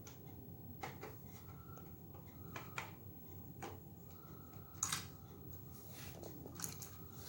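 Faint, scattered small clicks of a screwdriver working a screw out of a PlayStation's internal board, with light handling of the plastic and metal parts; the sharpest click comes about five seconds in.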